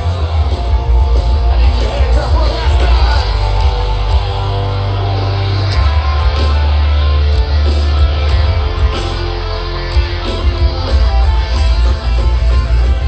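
A rock band playing loud and heavy, with electric guitars, a heavy bass line and drums, likely with some singing.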